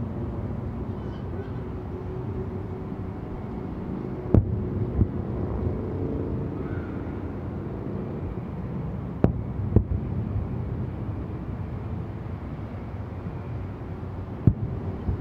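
Aerial firework shells bursting in three pairs of sharp bangs, about five seconds apart, each bang trailing off in a low rumble. Underneath is a steady low rumble of outdoor ambience.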